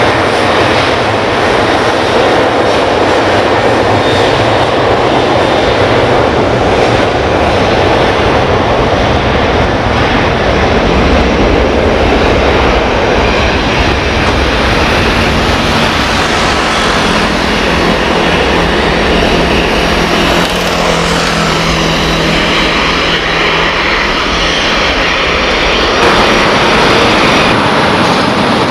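Boeing 737-800's jet engines running loud and steady as the airliner rolls along the runway. The sound shifts abruptly near the end.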